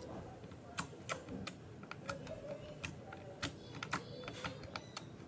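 Pink glitter slime being squeezed and stretched in the hands, giving irregular sharp clicks and pops.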